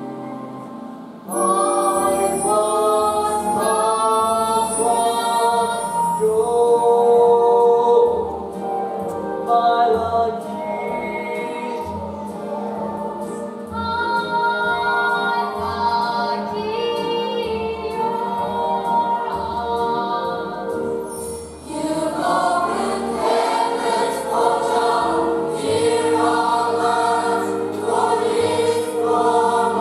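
Stage musical cast singing together as a chorus over a musical accompaniment with a bass line. The singing enters about a second in, eases briefly past the twenty-second mark, then swells again.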